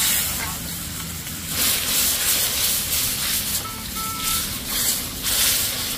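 Cooking over a fire: a hiss like food sizzling in a pan, swelling loudly several times.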